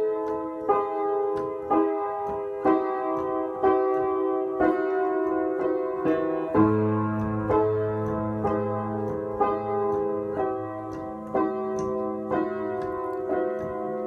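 Slow piano music, a note or chord struck about once a second and left to ring, with a low sustained bass joining about six and a half seconds in.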